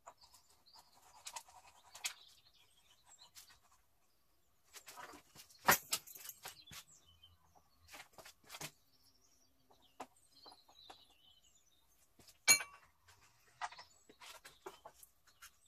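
Engine unit of a Stihl HT 75 pole pruner being fitted by hand onto its drive tube: scattered clicks and knocks of plastic and metal parts, with two sharper knocks, one about six seconds in and one about twelve seconds in.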